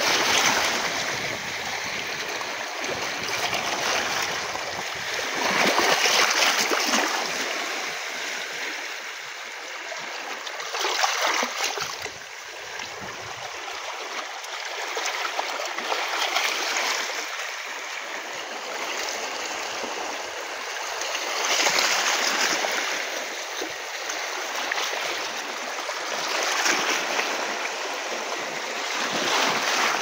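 Small sea waves washing and splashing over shoreline rocks, swelling into a louder rush about every five seconds with a steady wash of water in between.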